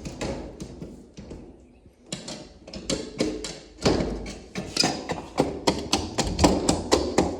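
A quick run of hard knocks, like hammering, starting about two seconds in and settling into about three to four knocks a second.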